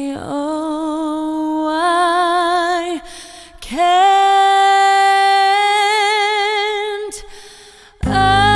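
A solo singer holding long notes with vibrato and no accompaniment: two long notes, the second higher. Near the end, instrumental accompaniment with bass and chords comes in.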